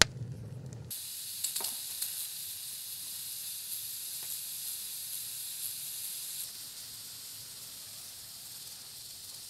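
Steam hissing steadily from the valve of an Afghan kazan, a cast-aluminium pressure cooker on the fire, venting once it is up to pressure. The hiss eases a little after about six seconds. For the first second, a wood fire crackles in a tandoor before the hiss cuts in.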